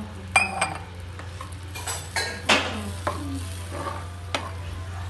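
A metal spoon stirring and scraping in a pot of simmering curry gravy. Several sharp scrapes and clinks sound against the pot, the loudest about half a second in and again about two and a half seconds in.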